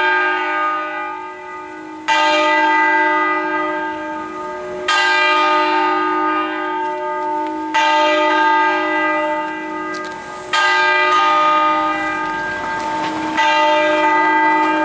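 Swinging church bells of a six-bell ring in E-flat cast by Fratelli Barigozzi, rung in the Roman style: five loud strokes about three seconds apart, each one ringing on and fading under the next, over a lasting hum.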